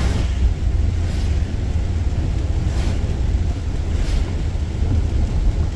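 Car interior road noise while driving on a wet highway: a steady low rumble with tyre hiss, and a few brief swishes.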